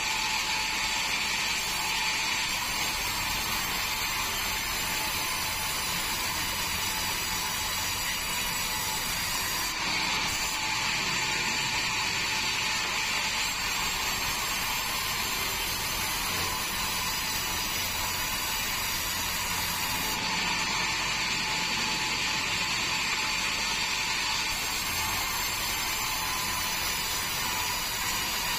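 Band sawmill running with a steady mechanical whir and a faint even whine that holds without a break.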